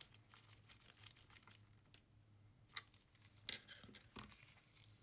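A few faint clicks and light rustles as a plastic calculator case is handled with latex-gloved hands, in near silence.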